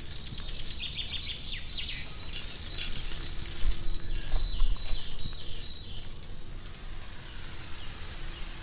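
Small birds chirping in a forest, many short, quick high chirps that are densest around the middle, over a steady low background rush.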